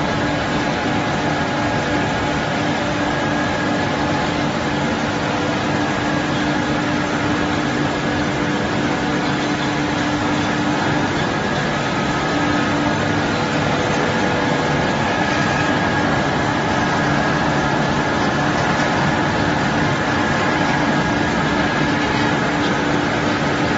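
Two vertical pellet mills running steadily while pressing out pellets. There is an even mechanical din with a steady low hum and a higher whine.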